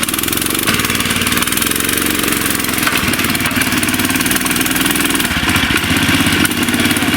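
Small boat outboard motor running steadily at constant speed, its fast even firing rhythm loud and unbroken.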